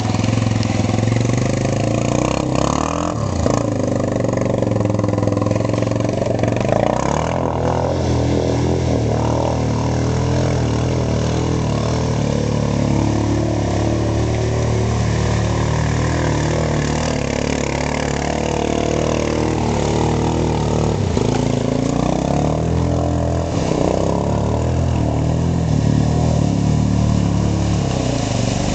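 ATV engine running hard and revving, its pitch rising and falling as the throttle is worked, while the quad churns through river water with its tyres throwing up splashing spray.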